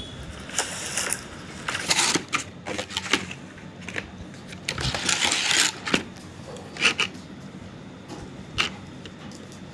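A clear plastic tray of lipstick tubes and its cardboard box being handled: irregular clicks, taps and plastic rustles, the longest rustle about five seconds in and a couple of sharp clicks near the end.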